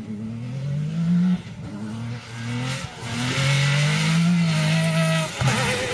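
Off-road rally buggy engine revving hard as it accelerates past, its pitch climbing and dropping back at each gear change, several times over. The rush of tyres on dirt grows louder in the second half.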